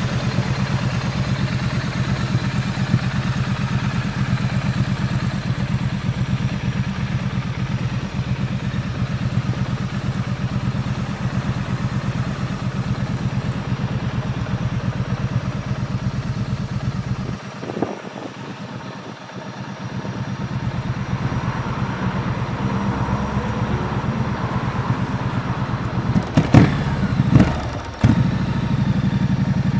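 Triumph Street Twin's 900 cc parallel-twin engine idling steadily. The engine sound drops away for a couple of seconds a little past the middle and then comes back. Two sharp knocks come near the end.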